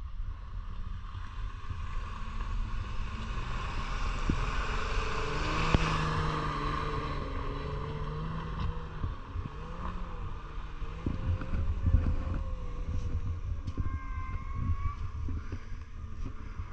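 Off-road 4x4's engine running under load, its pitch rising and falling, with a broad rushing noise that swells about five to seven seconds in and a low wind rumble on the microphone.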